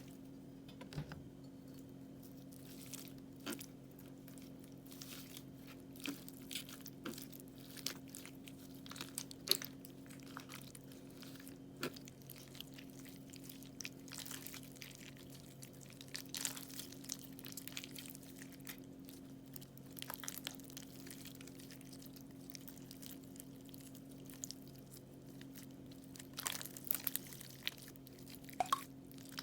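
Crunchy slime being handled, pressed and cut, giving irregular crisp crackles and crunches over a faint steady hum.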